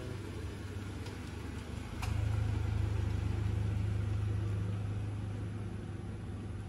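Toyota Rush SUV's engine running at low speed as it pulls slowly past and away: a low hum that gets louder about two seconds in, then slowly fades. A single light click comes as it gets louder.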